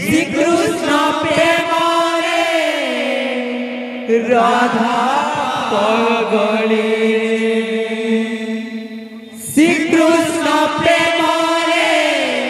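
Male voices singing an Odia devotional kirtan in long held, bending phrases, with a hand-beaten two-headed barrel drum (khol) keeping the beat. A fresh sung phrase starts about four seconds in and again near the end.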